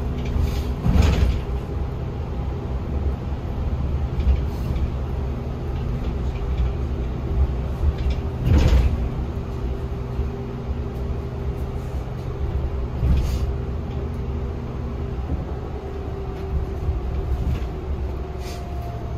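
Yutong E12 battery-electric city bus driving, heard from inside the passenger cabin: a steady low rumble with a constant electric-drive hum. A few short thumps and rattles come through, the loudest about eight and a half seconds in.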